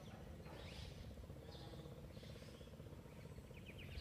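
Faint outdoor ambience: a steady low rumble with a few faint high bird calls. Near the end a fast trill of high chirps, about ten a second, starts up.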